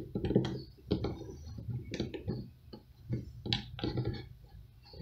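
Irregular metallic clicks and ticks of an electric drill's chuck being turned and tightened by hand around a hole saw arbor.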